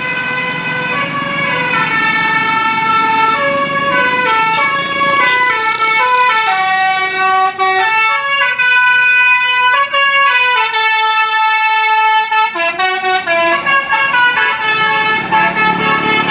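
Multi-tone 'telolet' Basuri bus horn playing a melody: several horn tones sound together and step up and down in pitch through a tune, with a low rumble beneath in the first few seconds and again near the end.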